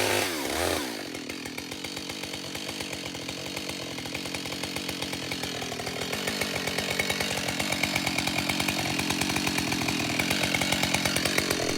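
Husqvarna 572 XP two-stroke chainsaw blipped up to speed and then cutting steadily into the trunk under load, the engine holding a steady pitch with a slight dip and recovery partway through.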